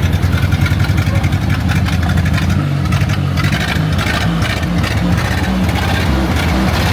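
1929 Ford Model A's four-cylinder flathead engine running, its pitch rising and falling a little in the middle as the revs change.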